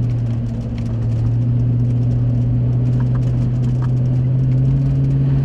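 Engine and road noise of a moving vehicle heard from inside the cabin: a steady low drone over tyre rumble, its pitch rising a little about four and a half seconds in as the engine speeds up.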